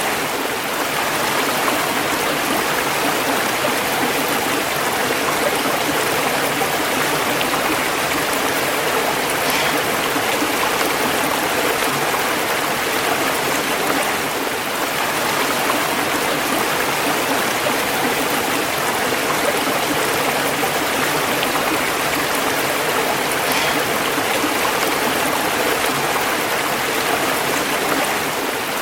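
Running water: a stream or small waterfall, a steady, unbroken rush and splash with no change in level.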